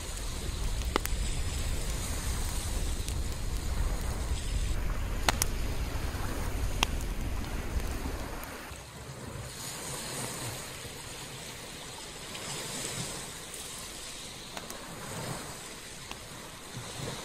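Sea waves washing onto a sandy beach, with wind rumbling on the microphone for the first half, then dropping away. A few sharp clicks stand out over the surf.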